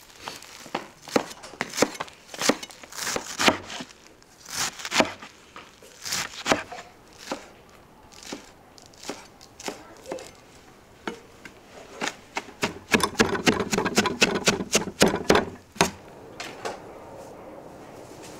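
Chef's knife chopping a bunch of fresh herbs on a wooden cutting board, the blade knocking on the board in uneven strokes. The strokes come in a fast, dense run about twelve seconds in, then stop about two seconds before the end.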